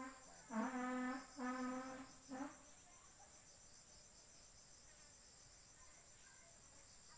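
Insects chirring steadily in the evening air. In the first two and a half seconds this is broken by three or four short, even-pitched calls or hums, each under a second long, from an animal or a person.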